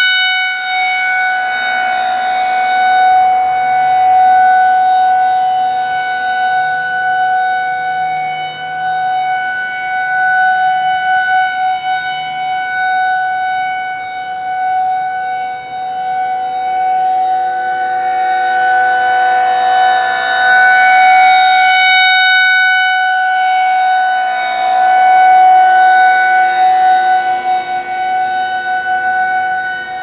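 Federal Signal 2001-SRNB rotating electromechanical siren sounding its steady alert signal for a monthly test: one unbroken tone that does not rise or fall in pitch. It swells louder and fades as the rotating horn sweeps toward and away from the listener, loudest a little past two thirds of the way through.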